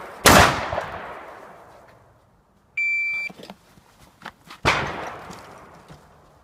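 Two shotgun shots about four and a half seconds apart, each with a long fading tail. Between them, about three seconds in, comes a short, steady, high electronic beep.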